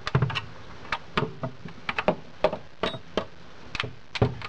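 Irregular sharp clicks and knocks of a G36C airsoft gun's plastic body and parts being handled while a takedown pin is pushed out.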